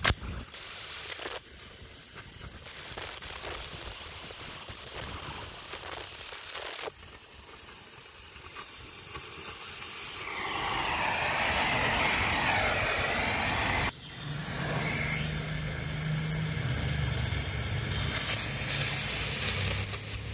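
Oxy-fuel cutting torch hissing steadily as it cuts through a steel beam, the sound changing abruptly several times. A low steady hum joins in the second half.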